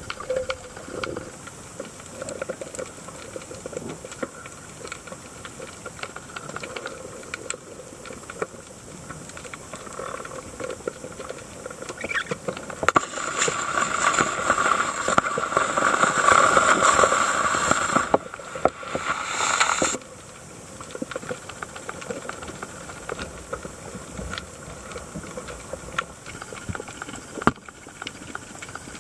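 Underwater ambience: a steady hiss dotted with fine crackling clicks, with a louder rushing stretch of several seconds in the middle that stops abruptly.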